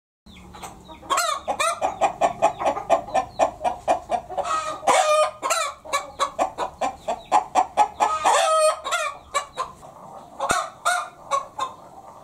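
Domestic hen cackling, the 'petok-petok' call: a fast run of loud repeated clucks, broken twice by longer drawn-out notes, thinning out near the end.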